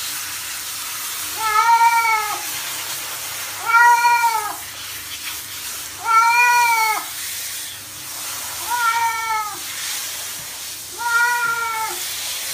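A cat meowing five times while being showered, each meow under a second long and rising then falling in pitch, over the steady hiss of water spraying from a handheld shower head.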